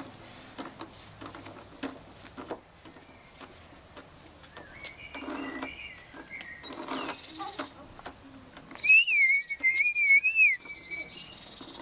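A high, wavering whistle lasting about two seconds near the end, the loudest sound here, over scattered light taps and clicks.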